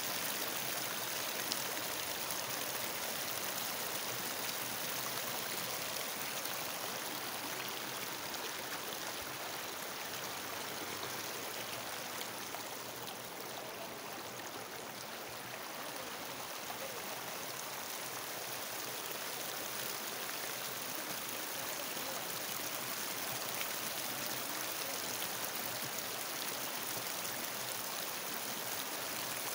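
Muddy floodwater rushing past in a steady, even wash of noise, which dips a little in level about halfway through.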